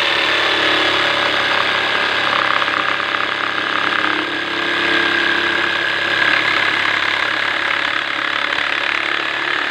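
Hilda 910-watt electric jigsaw running steadily as it cuts through 3/4-inch plywood.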